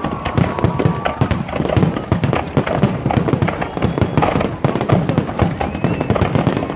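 Fireworks display: a dense, continuous barrage of rapid bangs and crackles going off in quick succession.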